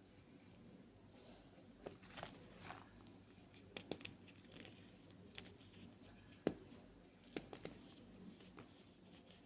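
White gym chalk being crushed and crumbled: a quiet, irregular scatter of soft crunches and crackles, the sharpest about six and a half seconds in.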